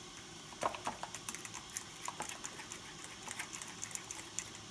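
Thick, spicy egg-and-chili marinade being stirred in a ceramic bowl, giving light, irregular clicks and taps against the bowl.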